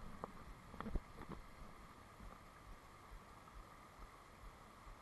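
Steady rush of stream water running over rocks in a riffle. A few sharp knocks and clicks in the first second and a half, the loudest about a second in.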